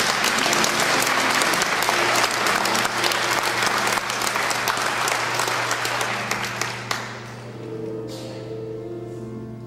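Congregation applauding, dense clapping that dies away about seven seconds in, over music with held notes.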